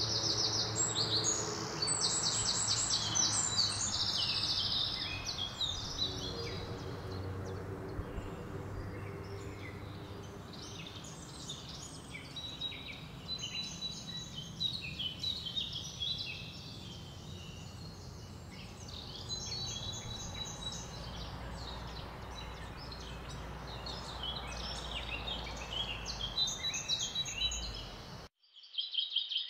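Songbirds chirping and trilling, many rapid trills overlapping, over a steady low outdoor hum. The sound cuts out abruptly for a moment near the end, then a trill starts again.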